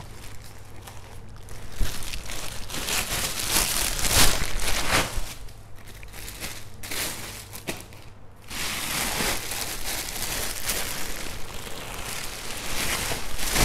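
Clear plastic bags crinkling and rustling as shoes are handled inside them, in two long spells with a quieter lull a little past the middle.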